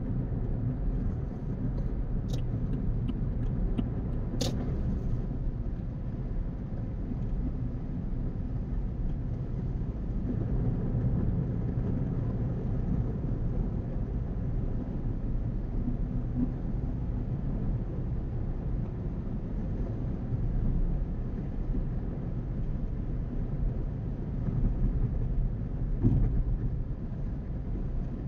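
Steady low rumble of a car's tyres and engine heard from inside the cabin while cruising on a highway, with two sharp clicks a few seconds in.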